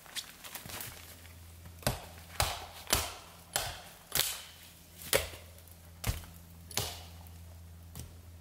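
Axe chopping into the base of a small standing tree: about nine sharp, separate strikes, spaced roughly half a second to a second apart.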